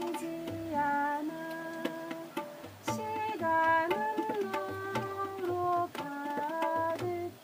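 Live acoustic music: a melody of held notes stepping up and down, some sliding between pitches, over light percussion hits.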